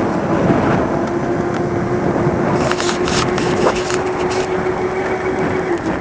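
Electric scooter riding over a bumpy road: continuous rumble and rattle with scattered clicks and knocks, and a steady motor whine that stops shortly before the end.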